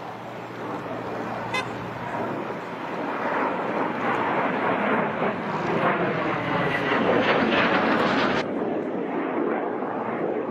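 Jet noise from a JF-17 Thunder fighter's single Klimov RD-93 turbofan as it flies past in a display. It swells to its loudest about seven to eight seconds in, then drops off suddenly to a lower rumble.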